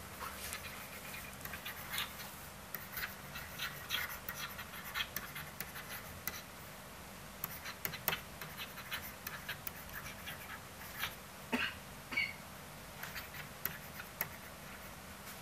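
A stylus (digital marker) tapping and scratching on a tablet screen as words are handwritten: faint, irregular small clicks and scrapes.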